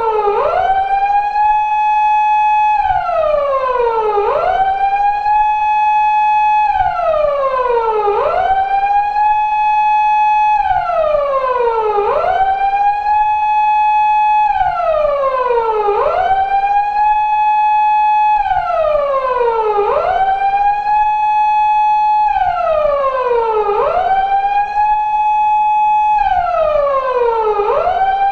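Japanese police car siren of the 2000s type used on 170- and 180-series Toyota Crown patrol cars, wailing in a four-second cycle. Each cycle rises quickly, holds its high note about a second and a half, then slides slowly back down.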